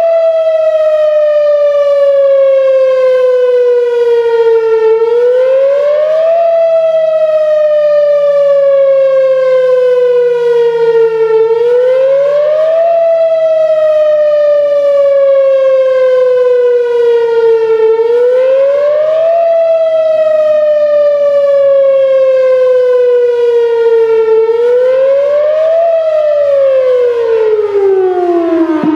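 Whelen Vortex R4 'Finback' outdoor warning siren sounding its wail test signal. It climbs quickly in pitch and then falls slowly, once about every six and a half seconds. Its rotator is broken, so it holds a steady loudness instead of sweeping. Near the end the pitch falls lower as the siren winds down.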